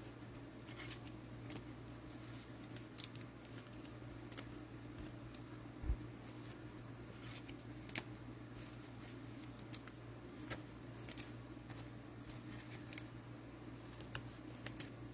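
Faint rustling and light irregular clicks of trading cards and cellophane pack wrappers being handled, over a steady low hum. There is one soft thump about six seconds in.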